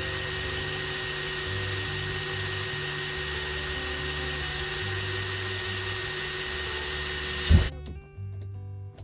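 Electric drill running steadily as it drills out the rivets on an RV window operator. It stops about seven and a half seconds in with a sharp knock, leaving background guitar music. Music plays under the drill throughout.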